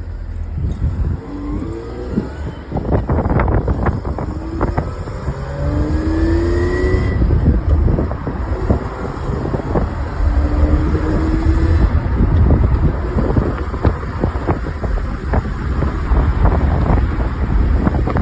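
Manual-swapped Lexus IS300 being driven hard, the engine pulling up in pitch through the gears several times, with a heavy low rumble and road noise throughout.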